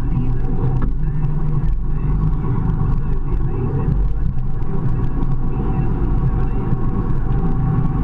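Ford TW-25 tractor's six-cylinder diesel engine running steadily under load while pulling a five-furrow reversible plough, with faint scattered clicks over the engine.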